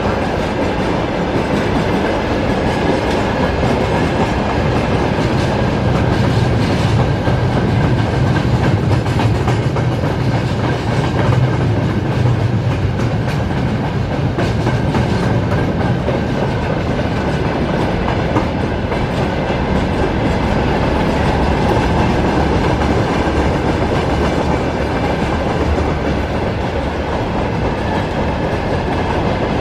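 Mixed freight wagons (tank cars, timber flatcars and covered hoppers) rolling past, their wheels clattering over the rail joints in a steady, loud rumble.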